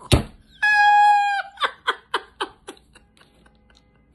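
A rooster sound effect: a sharp knock, then one held crowing note that drops at its end, followed by a quick run of about six clucks that fade away.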